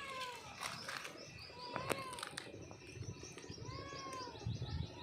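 Mother cat giving short, arching calls to her kitten, three times about two seconds apart. A fast run of short, high chirps starts about halfway through, and a few sharp clicks come in the first half.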